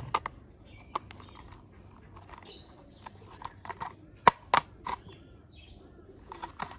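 Hard plastic toy car body and chassis clicking and tapping as the freshly snapped-together car is handled: a few sharp clicks, loudest a quick run of three a little past the middle.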